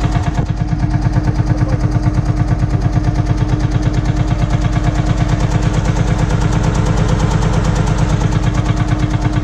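Lanz tractor's single-cylinder two-stroke hot-bulb engine idling, with a rapid, even pulse of strokes and a steady underlying hum.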